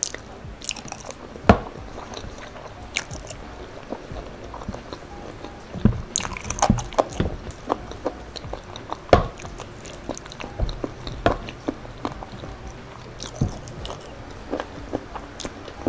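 Close-up chewing and wet mouth sounds of someone eating boneless chicken feet in spicy sauce. Irregular sharp clicks and smacks run throughout, a few much louder than the rest.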